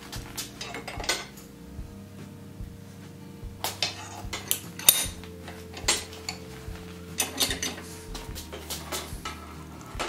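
Sharp metallic clanks and clinks, the loudest about five seconds in, as a hot iron bar is set into a blacksmith's leg vise and the vise is screwed tight. Soft background music runs underneath.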